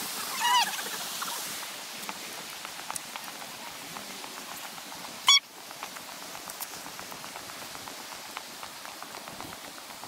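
Steady rush of a creek running over rocks, with scattered light ticks, a short call about half a second in and a brief loud blip about halfway through.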